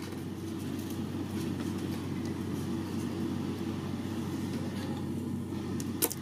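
A steady low droning hum, even throughout, with two short sharp clicks near the end.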